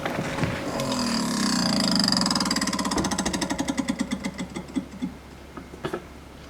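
Samsung RF28HMEDBSR refrigerator fan grinding against ice buildup: a rapid rattling grind that slows and fades away over the last few seconds as the fan winds down.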